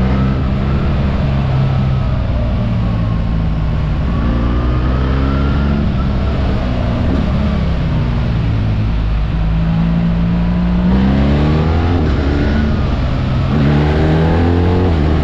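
BMW R 1300 GS boxer twin engine heard from the rider's seat while riding, its note rising and falling with the throttle through the bends. It climbs sharply twice near the end as the bike accelerates.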